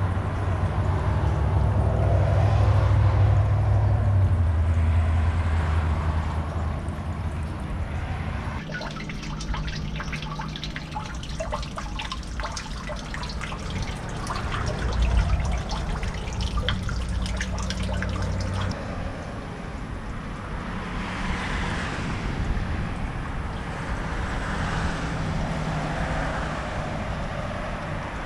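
Water trickling and dripping into a storm drain through its metal grate, a crackly patter of drips that sets in about nine seconds in and stops about ten seconds later. Before and after it, a steadier outdoor wash with a low hum underneath.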